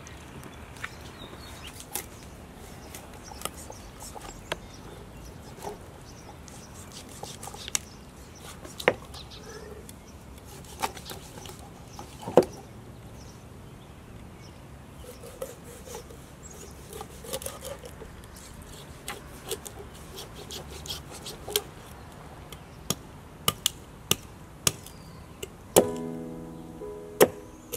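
Scattered sharp clicks and knocks of a knife cutting into a whole walleye on a wooden cutting board, one every second or two. Music starts near the end.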